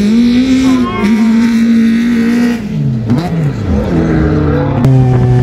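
Autocross race car's engine pulling hard on a dirt track, holding a high steady note. About three seconds in the revs drop steeply as the driver lifts for the corner, then climb again and settle at a lower note, with a sharp click near the end.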